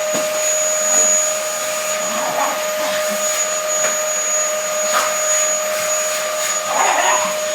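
Vacuum cleaner running steadily with a high whine, with a few brief louder noises over it about two and a half, five and seven seconds in.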